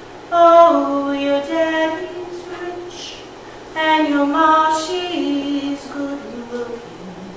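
A woman singing solo and unaccompanied: two long phrases of held notes with a short breath between, the second stepping down in pitch as it ends.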